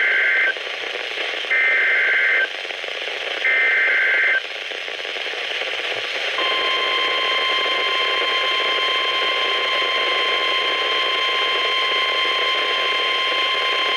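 NOAA Weather Radio alert on a weather-band receiver: three bursts of SAME digital header data about a second each, with static hiss between them. About six seconds in, the long, steady 1050 Hz warning alarm tone starts, signalling that a new alert is about to be read.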